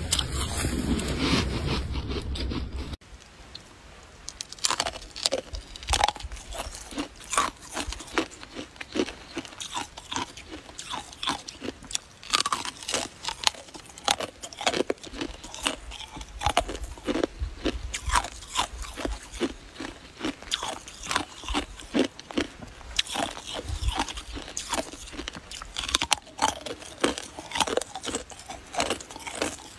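A person biting and chewing a long icicle: dense, crisp crunches of ice. For about the first three seconds a louder steady noise plays, then cuts off abruptly.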